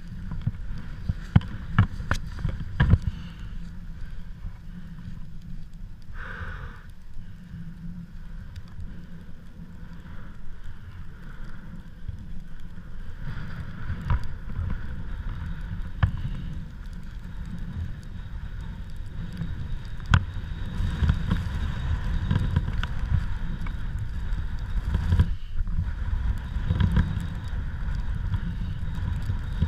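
Gusty wind buffeting the microphone, a steady low rumble with scattered sharp knocks and pops, growing somewhat louder in the second half.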